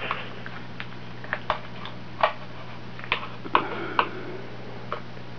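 Fillet knife clicking against a wooden cutting board while cutting the tail off a small scaled sunfish: a series of sharp, irregularly spaced clicks, about nine in all.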